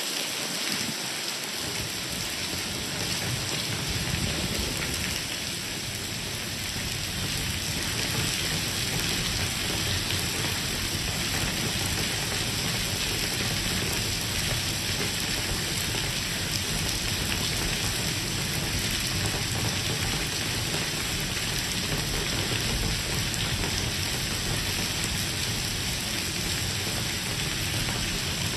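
Heavy rain pouring steadily onto wet stone paving, a dense, even hiss that holds without change.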